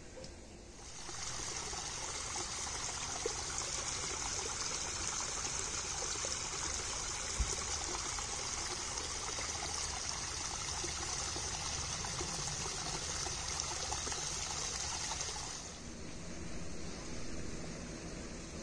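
Small hillside stream trickling down a mossy rock face, a steady hiss of running water that sets in about a second in and fades near the end. One brief low thump about halfway through.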